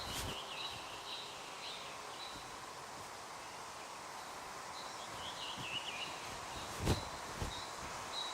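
Faint forest ambience with high, wavering bird calls twice, near the start and about five seconds in, and a single dull thump about seven seconds in.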